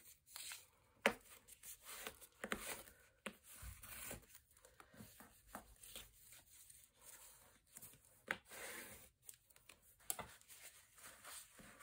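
Bone folder rubbing and scraping over the paper of a glued folio spine, with the paper rustling as it is handled, in short, faint strokes and a few light clicks.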